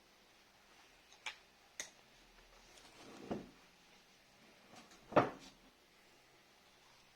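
A few separate clicks and knocks of tools or small parts being handled: two sharp clicks, then a duller knock, and the loudest knock about five seconds in.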